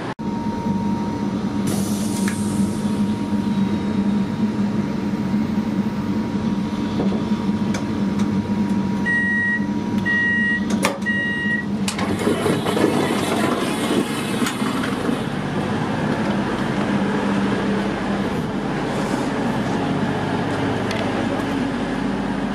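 CrossCountry Voyager diesel train running with a steady hum at the platform. About nine seconds in, the door sounds three short beeps, and the sound opens out about twelve seconds in as the door opens onto the platform.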